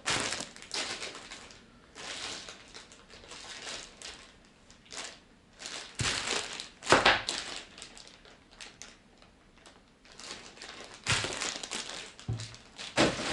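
Plastic packaging bags crinkling and rustling as parts are unwrapped and handled, in irregular bursts, loudest around the middle and again near the end.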